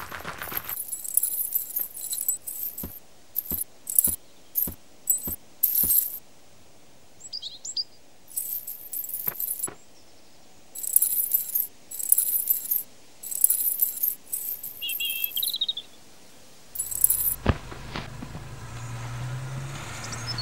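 Trap chain jangling and clinking in repeated bursts as a caught red fox pulls against it, with about six sharp clinks at an even pace in one stretch. A couple of short bird chirps come in between, and near the end a car engine's steady low hum begins.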